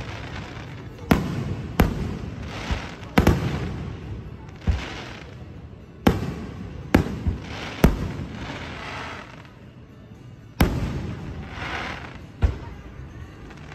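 Aerial firework shells bursting in a display: a string of about ten sharp bangs, several of them followed by crackling fizz from the burst stars.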